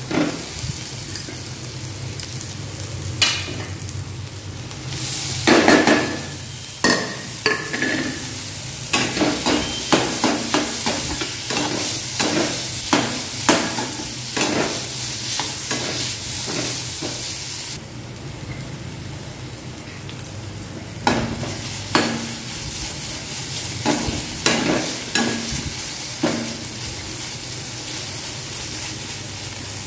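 Onion and crumbled paneer sizzling in a kadai while a perforated steel slotted spoon stirs and scrapes them across the metal pan, with frequent short scraping clatters over a steady sizzle. Past the middle the stirring stops for about three seconds and only the sizzle is left.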